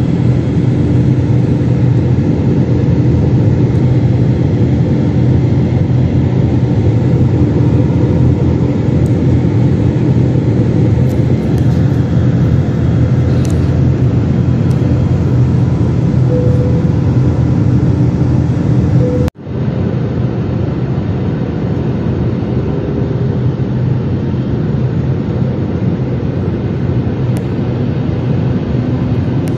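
Steady cabin noise of an Airbus A320-family jet airliner in cruise, heard from a window seat: the drone of the turbofan engines and rushing air, with a low steady hum. The sound cuts out for a moment about two-thirds of the way through, then resumes.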